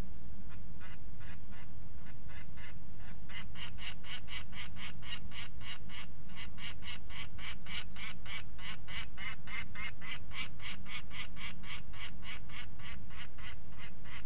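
Juvenile peregrine falcon calling: a long, rapid series of short harsh notes, about four a second, faint at first and louder from about three seconds in, over a steady low hum.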